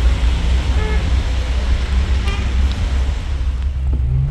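Motor vehicle running: a steady deep rumble with road noise, and two brief high tones about one and two seconds in.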